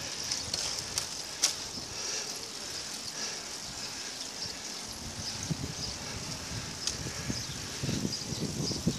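Road bicycles riding in a group up a climb: a steady rolling hiss with a few sharp clicks, two of them in the first couple of seconds and one more later.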